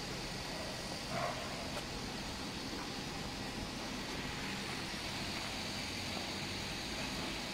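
Steady mechanical hum and hiss of workshop machinery around a balancing machine, with a light knock about a second in.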